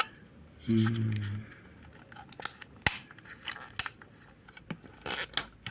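Plastic toy packaging being worked open by hand: scattered sharp clicks and snaps, bunched together near the end, with a short held vocal hum about a second in.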